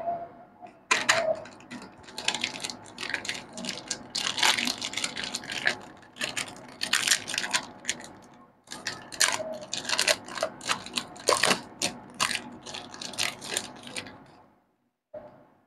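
Plastic candy-bar wrapper crinkling and tearing as hands peel it open, a fast stream of sharp crackles. There is a short break about nine seconds in, and the crackling stops about a second before the end, with one last brief rustle.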